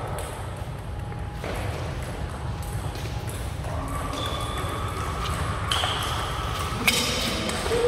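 Table tennis ball clicking off paddles and the table in a doubles rally, a few sharp hits spread irregularly, one louder near the end, over a steady low hum of the hall.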